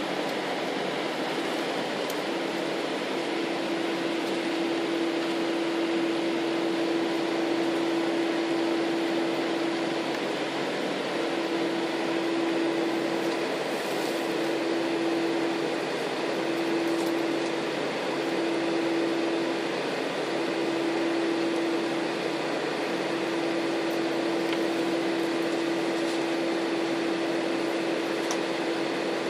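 Airbus A318 cabin noise: the twin jet engines and rushing air make a steady loud noise, with a steady droning hum running through it.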